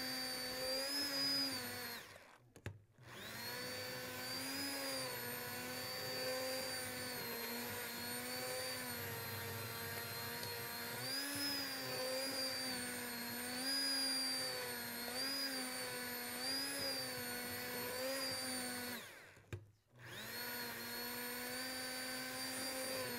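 Commercial immersion (stick) blender running in a pot of squash soup, pureeing it, its motor pitch wavering up and down as the blade works through the soup. It stops briefly twice, about two seconds in and again near the end, and starts back up each time.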